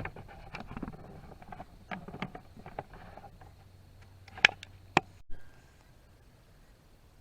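Rustling handling noise, then two sharp clicks about half a second apart before a sudden drop to a quieter background.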